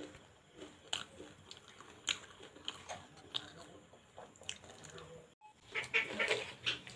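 Scattered crisp crunches and mouth sounds of someone eating hollow fried phuchka (pani puri) shells. There is a brief break a little after five seconds, followed by denser eating sounds.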